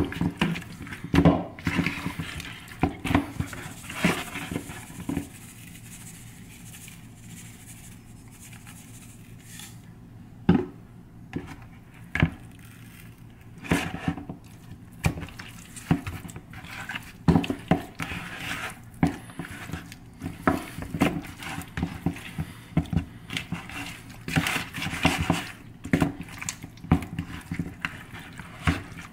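Hands tossing and rubbing raw chicken leg quarters in seasoning inside a plastic mixing bowl: irregular wet handling noises, knocks and scrapes of the bowl, with a quieter stretch a few seconds in.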